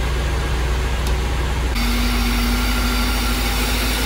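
Mercedes 500SEC's M117 V8 idling steadily, shortly after a service of its camshaft oiler kits and valve cover gaskets. A steady tone joins the engine noise about two seconds in.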